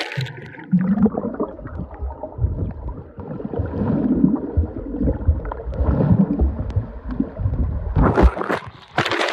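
Swimming-pool water heard underwater: muffled bubbling and gurgling with a low churning rumble as a swimmer moves about. Louder splashing comes near the end.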